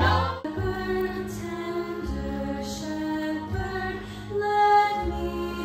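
Music: a melody of held notes over a steady bass line and a sustained low drone.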